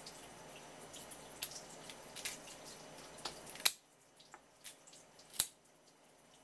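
A thin stream of tap water runs onto a wooden cutting board while hands pull apart a raw swimming crab, with scattered sharp clicks and crackles of shell. The steady water hiss cuts off suddenly about halfway through, and a few louder clicks follow.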